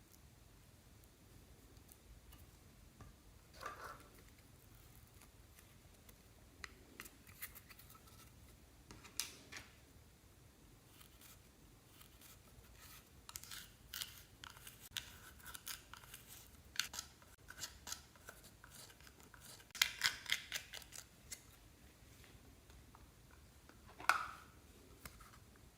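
Scattered crisp clicks and crackles from slime and makeup being worked by hand, quiet throughout. The loudest flurry of crackling comes about 20 seconds in.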